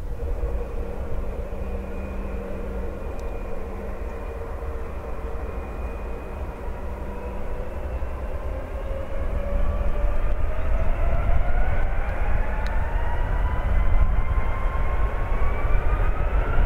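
Airbus A320-232's IAE V2500 turbofan engines with a steady whine, then from about halfway spooling up to takeoff thrust: the whine rises steadily in pitch and the jet noise grows louder at the start of the takeoff roll.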